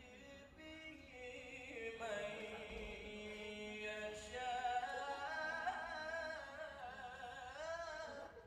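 A man reciting the Quran in the melodic tilawah style into a handheld microphone, holding long ornamented notes that waver and climb higher in the second half, then stopping shortly before the end.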